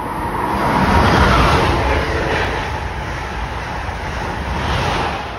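A high-speed electric passenger train passing through at speed: a loud rush of wheels on rail and air. It peaks about a second in, eases, and swells again near the end before fading.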